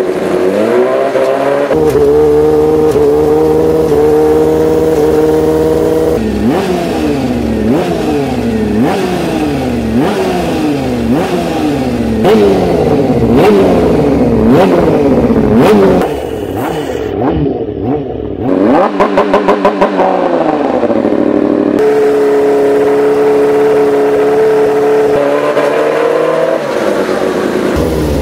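Moto2 racing motorcycle's Honda CBR600RR-based four-cylinder four-stroke engine revved hard on a paddock stand through its racing exhaust. It holds steady high revs, then is blipped up and down about once a second. After that it stutters in a quick string of even pulses and is held steady again before dropping back.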